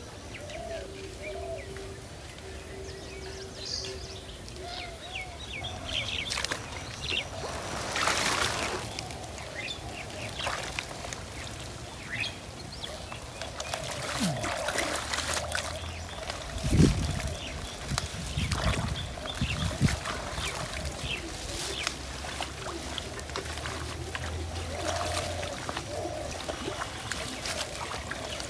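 Muddy ditch water sloshing and splashing as a person wades through it and works in it with his hands. Birds chirp during the first few seconds, and there is one loud low thump a little past the middle.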